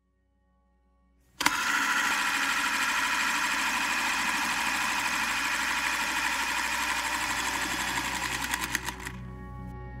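Logo-intro sound effect of rushing, churning underwater bubbles, starting suddenly about a second and a half in with a dense, fluttering rush that breaks into quicker pulses before falling away near the end. A soft sustained tone of ambient music comes in as it fades.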